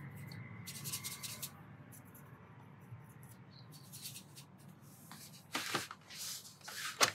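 Faint scratching and swishing of a watercolour brush on paper and palette. A few soft strokes come about a second in, and louder swishes come near the end, over a low steady hum.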